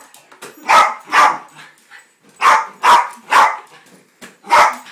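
Jack Russell terrier barking at a balloon in play: six barks in quick runs, two, then three, then one.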